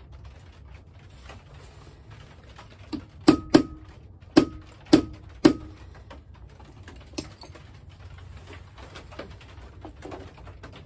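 Five sharp hammer blows on a steel punch held against the head of a 12 gauge shotgun shell, each with a brief metallic ring, coming quickly one after another. A lighter tap comes just before them and another about two seconds after.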